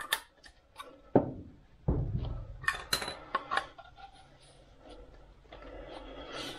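Plastic pipe pieces and plastic 90-degree elbow fittings being handled and pushed together by hand: a series of light plastic knocks and clicks, several in quick succession about three seconds in.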